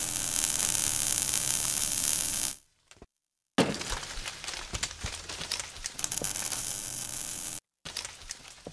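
Logo-reveal sound effect: a dense hissing rush that fades out about two and a half seconds in, then after a short silence a sudden hit followed by crackling clicks that thin out near the end.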